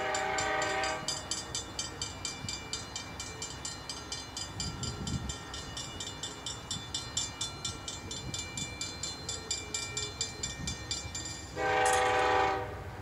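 Locomotive horn sounding, with a blast ending about a second in and another of about a second near the end. Between them a railroad grade crossing bell rings in a steady, rapid rhythm.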